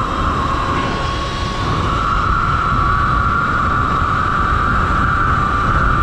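Sur-Ron electric dirt bike's motor and drivetrain whining steadily as it is ridden at road speed, growing louder about two seconds in, over wind rumbling on the microphone.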